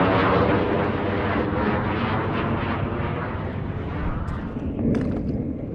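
Jet aircraft passing overhead, its engine roar fading and growing duller as it flies away. Near the end, a few small splashes and ticks of water.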